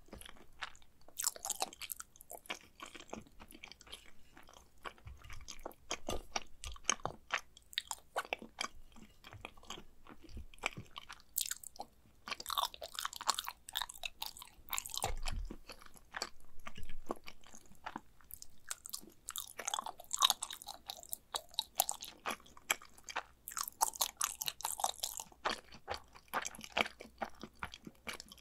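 Close-miked chewing of mac and cheese, with dense irregular clicks and smacks from the mouth throughout and busier stretches a few times.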